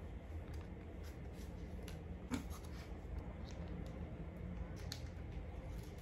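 Faint soft rustles and small clicks of a wet sheet face mask being unfolded and pressed onto the face, over a low steady room hum.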